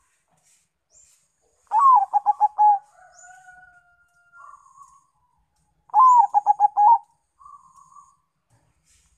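Zebra dove (perkutut), a Bangkok–local cross, singing its cooing song twice, a few seconds apart. Each phrase opens with a rising-and-falling note, followed by a quick run of about six short staccato coos.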